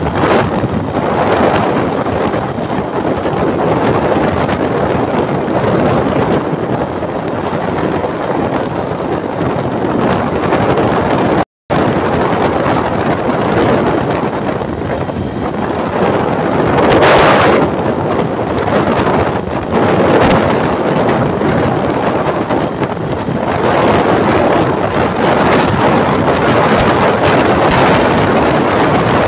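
Wind buffeting the phone's microphone while riding a motorcycle at speed, with road and engine noise mixed in. The rushing swells louder several times and cuts out for a moment about eleven seconds in.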